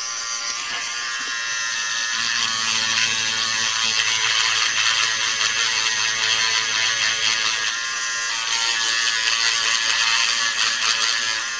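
Electric manicure nail drill, a variable-speed rotary motor rated up to 20,000 RPM, running steadily with a high-pitched whine, dipping briefly about 8 seconds in.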